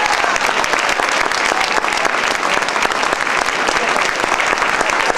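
Audience applauding: many hands clapping in a dense, steady patter, with some voices calling out among it.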